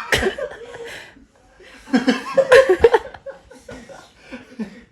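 People laughing in short bursts, once at the start and again for about a second, two seconds in.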